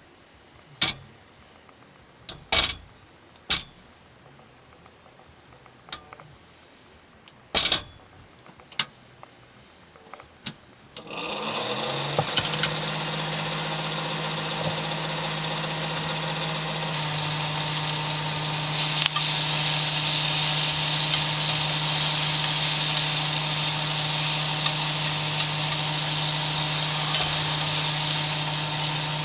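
A few sharp clicks and knocks of cookware, then about eleven seconds in a loud, steady frying sizzle starts suddenly from a hot pan, with a low steady hum under it. The sizzle grows louder near the end.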